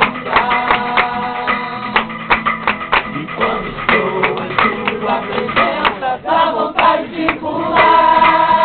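Male vocal group singing a gospel song live into studio microphones, with sharp rhythmic percussive strikes under the voices. Near the end the voices swell into a louder held note.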